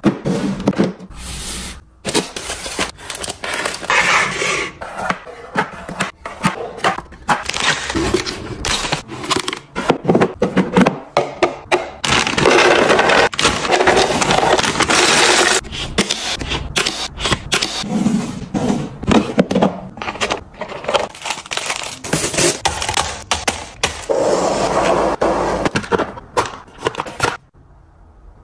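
Dry snacks poured from crinkly bags into clear plastic storage containers, rattling and clattering as they land. Plastic containers and lids click and clack as they are handled and set down. It goes quiet shortly before the end.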